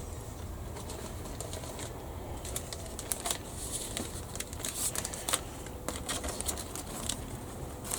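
Faint, scattered light clicks and taps of small tools and plastic model parts being handled at a modelling bench, over a low steady hum.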